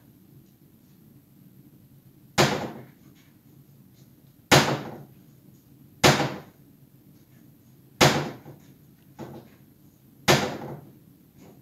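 Kitchen cabinet doors slamming shut: five loud bangs about two seconds apart and a softer one between the last two, each with a short echoing tail.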